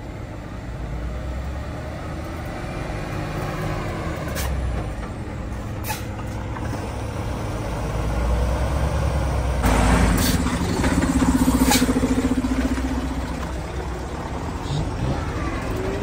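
Heavy truck's engine running with a low rumble that grows louder, a steady hum from about ten seconds in to about thirteen, and a few short hisses of air.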